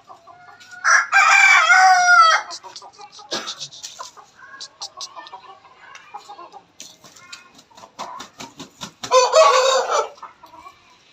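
Chickens: a rooster crows twice, once about a second in and again near the end, each crow a loud drawn-out call, with soft clucks and scratching clicks between.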